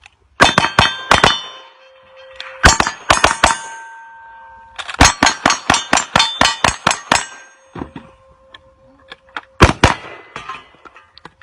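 Strings of rapid pistol shots. Many hit steel targets, which ring on with a clang after the hits: a few shots, a second short string, then a fast run of about ten shots and a few scattered shots near the end.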